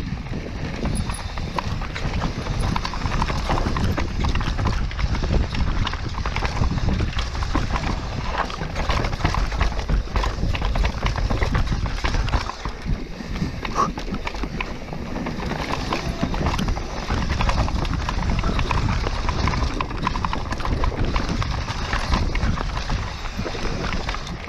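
Mountain bike running down a rough bike-park trail: tyres on dirt and stones and the bike clattering and rattling over bumps, with wind rumble on the microphone.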